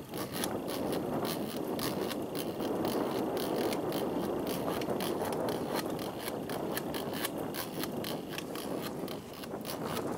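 Spinning reel being cranked steadily while reeling in a small fish, its gears whirring with rapid clicking throughout.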